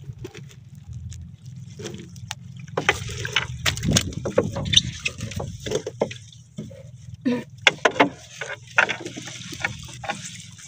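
Water splashing and sloshing in irregular bursts, most busily from about three seconds in, over a steady low hum.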